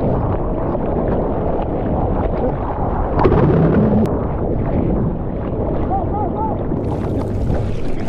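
Seawater sloshing and splashing over a camera mounted on a bodyboard as the board goes under the water, muffled while submerged. About seven seconds in the sound opens up into brighter splash hiss as the camera comes back out.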